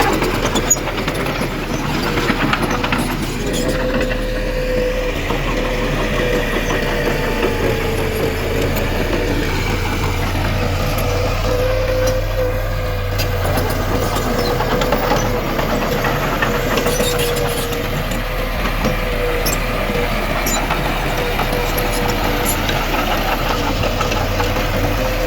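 Diesel engine of heavy earthmoving machinery running steadily, with a steady low hum and a slightly wavering whine over it.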